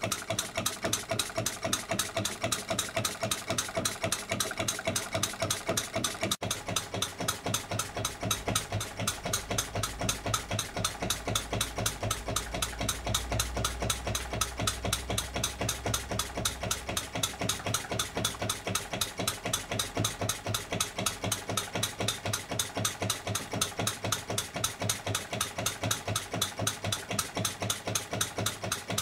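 Home-built single-cylinder horizontal model diesel engine (20 mm bore, 44 mm stroke, converted from a hot bulb engine) running steadily, its firing and valve gear making a fast, even beat.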